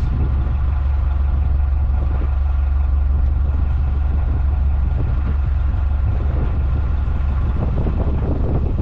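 A steady low engine rumble, with wind buffeting the microphone.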